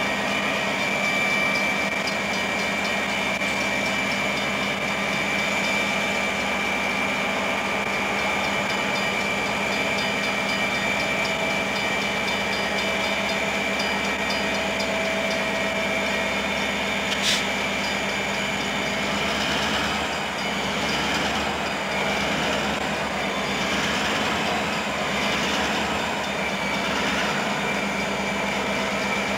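Union Pacific diesel locomotives running steadily at a standstill, a constant engine drone with a steady high whine on top. A single sharp click is heard once, a little past the middle.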